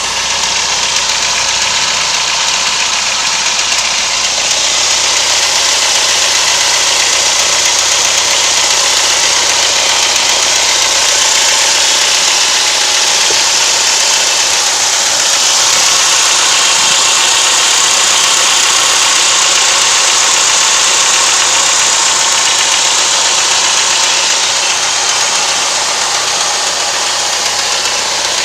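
Car engine idling steadily with a knock in it, the fault the owner is recording.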